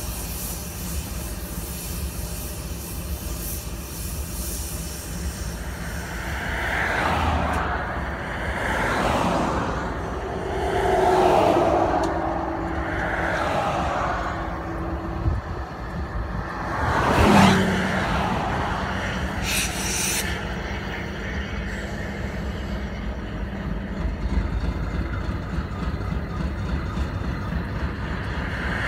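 Road traffic passing close by: several vehicles swelling up and fading away one after another, the loudest about a third of the way in and again just past halfway, over a steady low rumble.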